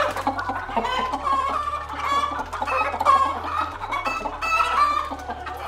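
Domestic hens clucking in quick runs of short calls, over background music with held low bass notes.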